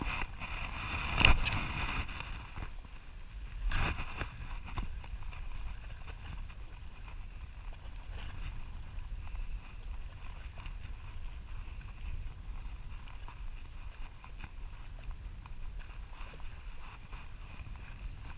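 Steady low rumble and hiss of wind and water on an open boat at sea, with a loud knock about a second in and a smaller one near four seconds.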